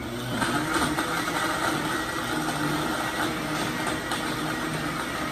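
Countertop blender switched on and running steadily, blending a liquid strawberry mixture of strawberries, milk and sugar.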